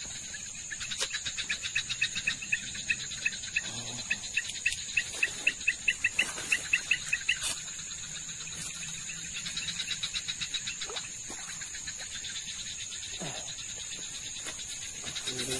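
Night insects: a steady high-pitched cricket drone, with a louder chirping call repeated about three or four times a second for the first seven seconds or so, then fainter pulses later.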